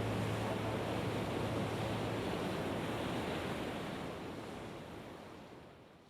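A steady rushing noise with a low hum that stops about two seconds in. The noise then fades out gradually toward silence near the end.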